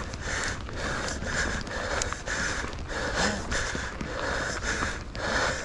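A mountain biker breathing hard and fast, about two breaths a second, over a steady low rumble.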